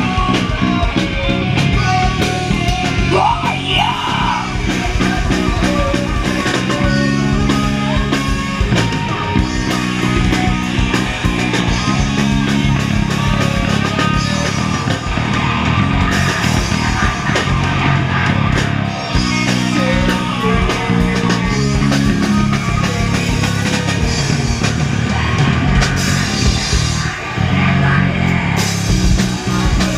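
Pop-punk band playing live: distorted electric guitars and a drum kit, with a singer's vocals over them.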